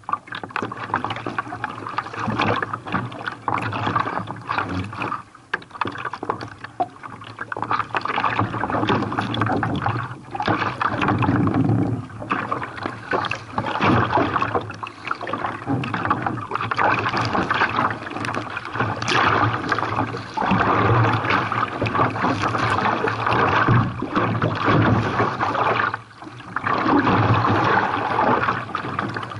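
Seawater rushing and splashing around a Knysna Genius carbon kayak in the surf, swelling and easing in uneven surges with a few short lulls.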